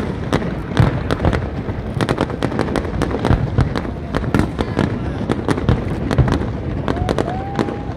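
Aerial fireworks display going off: a dense, continuous run of bangs and crackles, with a short rising whistle near the end.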